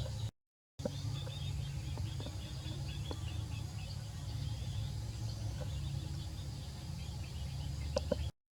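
Outdoor background noise: a steady low rumble with faint high insect or bird chirping and a few light clicks. The sound cuts out completely twice, briefly, about half a second in and near the end.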